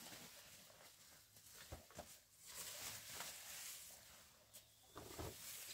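Near silence, with faint rustling and a few soft knocks.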